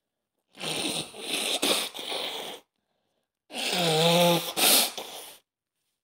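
A person with a head cold: a noisy rush of air through the nose and mouth lasting about two seconds, then, about three and a half seconds in, a sneeze with a wavering voiced 'ah' build-up before a sharp burst.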